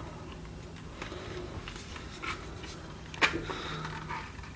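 Faint handling noises: small clicks and light rustling as the body of a model locomotive is worked off its chassis, with one sharper click about three seconds in.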